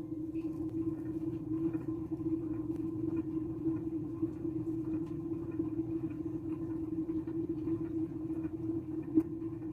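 A steady low machine hum, like a small electric motor running, with faint scattered clicks and one sharper tap near the end.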